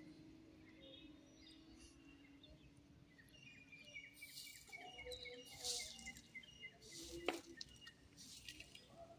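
Quiet outdoor ambience with birds chirping: a rapid run of short, repeated notes from about three seconds in, among faint rustles and one sharp click. A low held tone dies away over the first two seconds.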